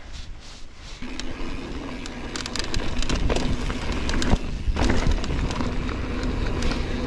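Mountain bike rolling along a dirt trail: tyre noise with clicks and rattles from the bike over rough ground, and wind rumbling on the microphone. The sound gets louder about a second in, when a steady hum joins.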